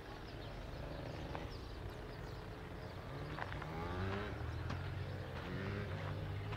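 Horses walking on a stony trail, hooves clip-clopping in a few sharp clicks.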